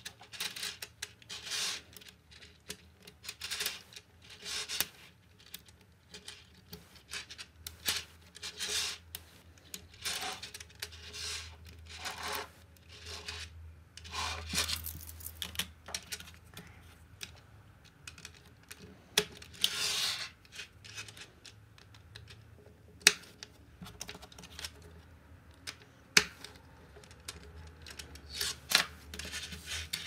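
Small magnetic balls clicking together and scraping as they are snapped into place and pushed around by hand: irregular ticks and short rubs, with a couple of louder sharp snaps in the last third.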